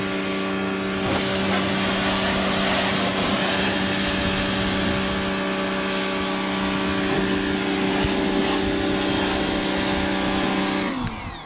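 Pressure washer running with a steady motor hum under the hiss of its water jet spraying the side-by-side's panels. A little before the end the spray stops and the motor winds down with a falling pitch.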